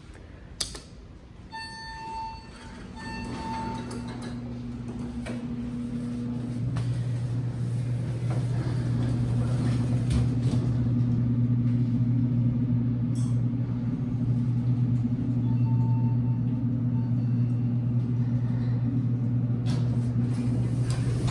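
Modernized Dover traction elevator: a click, then two short electronic chime tones, then a steady low hum as the car rides, getting louder over the first several seconds. Another single chime sounds about two-thirds of the way through.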